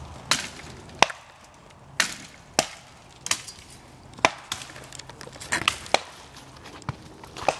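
Axe chopping into a small standing tree: about ten sharp, single blows, roughly one a second.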